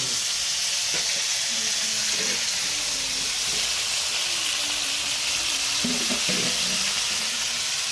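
Food frying in hot oil in a pan, a steady sizzling hiss.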